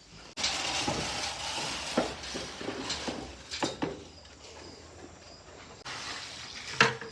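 Dry chicken feed poured out of a scoop: a sudden rushing hiss of grain starts about a third of a second in and tapers off over a few seconds, with scattered clicks and a sharp click near the end.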